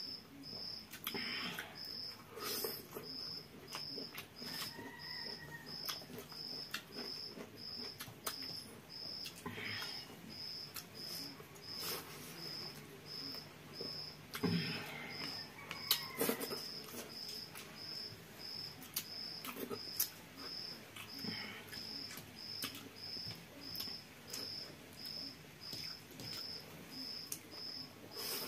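Close-up eating sounds: chewing and lip smacking, with fingers mixing rice and curry against steel plates. Behind them a cricket chirps in short, regular high chirps.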